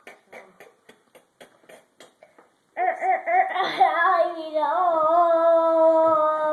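A run of quick, soft clicks for a little over two seconds. Then a child's voice makes a long, drawn-out vocal sound that wavers in pitch and then holds one steady note.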